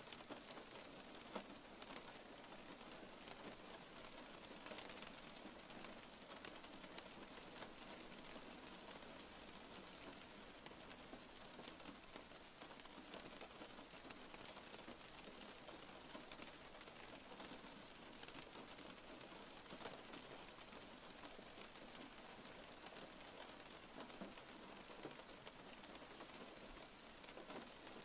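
Faint steady rain: an even hiss with scattered drop taps.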